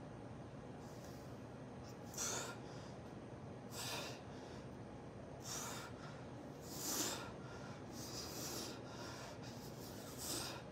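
A man breathing out hard with each dumbbell rep: about six short, sharp exhalations, one every second and a half or so, over a steady low hum.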